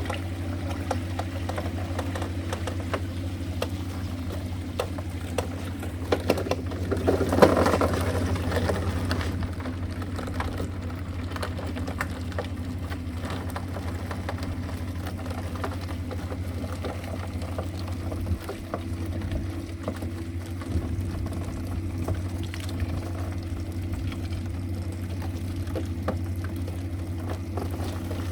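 Hydraulic rock splitter's power unit running with a steady low drone. About six to eight seconds in come a cluster of sharp cracks and a louder rush of noise.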